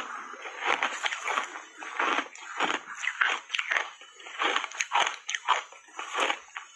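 Ice chewed with the mouth closed: a steady run of crunches, two or three a second, from ice bars coated in matcha powder.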